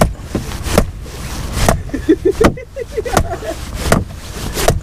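About seven sharp blows, one every three-quarters of a second or so, clubbing a freshly landed yellowtail on the head to kill it.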